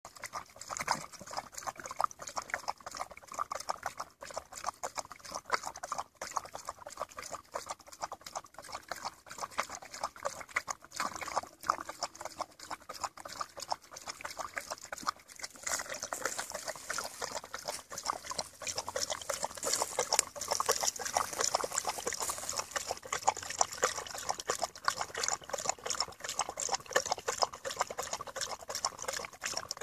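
Weimaraner lapping water from a plastic travel-bottle trough: a fast, steady run of wet laps and splashes, louder in the second half.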